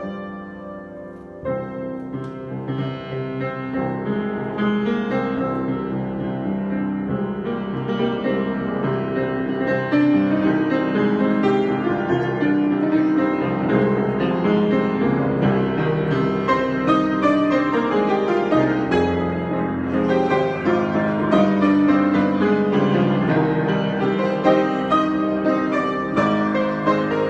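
Solo piano improvisation. A held chord dies away in the first second or so, then the playing starts again with a new chord and builds, growing louder and busier about ten seconds in.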